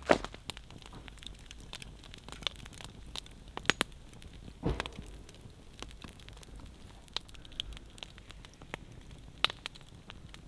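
Wood fire of dry split logs crackling, with irregular sharp pops, a few louder than the rest.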